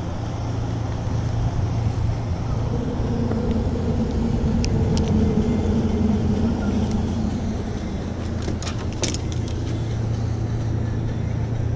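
Steady low engine hum, with a second engine note that swells through the middle and fades away, and a few small sharp clicks.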